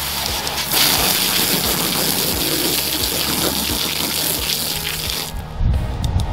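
Garden hose spraying water onto freshly backfilled dirt to settle it, a steady hiss that cuts off about five seconds in.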